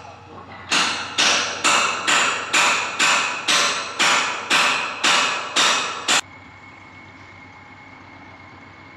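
Hammer striking the steel foot of a fairground ride's support column: about a dozen ringing metal blows, roughly two a second, that cut off suddenly about six seconds in. A faint steady background with a thin high whine follows.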